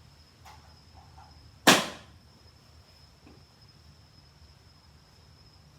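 A plastic impact-driver bit case snapping shut once, a sharp loud snap, with a few faint plastic clicks before it as it is handled.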